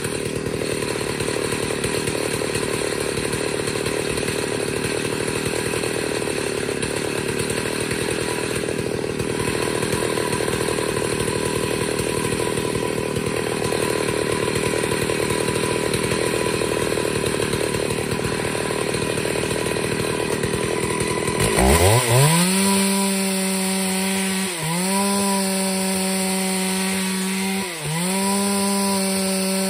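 Stihl MS381 two-stroke chainsaw ripping a hardwood log lengthwise, its engine running rough and heavily loaded in the cut. About 22 seconds in the load comes off and the engine climbs quickly to a steady high pitch, dipping briefly twice near the end.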